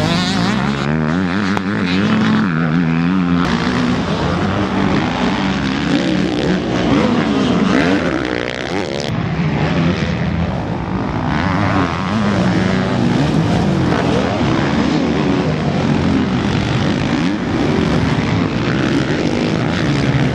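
Several motocross bike engines racing on the track, their pitch repeatedly rising and falling as the riders rev, shift and back off, with more than one bike audible at once.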